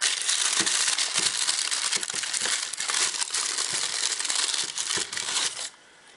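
A plastic carrier bag and a paper cookie bag crinkling and rustling as a hand digs a large cookie out. The rustling stops suddenly near the end.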